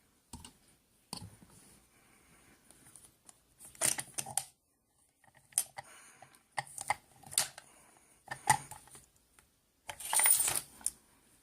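Small metal parts of a just-picked Binco padlock clicking and clinking as it is handled and taken apart: a string of separate sharp clicks and short clatters, the loudest a jingling clatter near the end.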